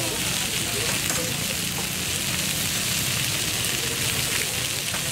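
Marinated chicken legs (tangdi kebabs) sizzling in oil on a hot flat iron griddle: a steady frying hiss.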